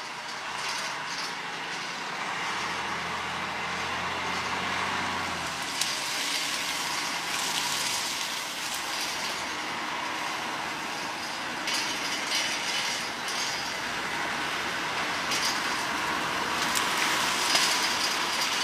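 Small sugar-cane railway locomotive moving slowly along overgrown track: a low engine hum under a steady rattle, with scattered clanks of wheels and wagons, growing louder toward the end as it comes close.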